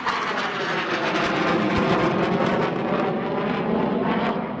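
Dassault Rafale fighter's twin Snecma M88 turbofan engines, a loud, steady jet engine noise as the aircraft flies overhead.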